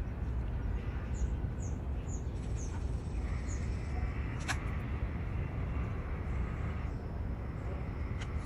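Steady low background rumble, with a bird chirping five short times in quick succession early on and two sharp clicks, one midway and one near the end.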